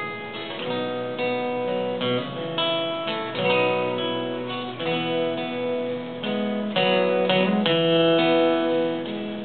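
Acoustic guitar played solo, chords ringing and changing every half second or so, with no voice over it.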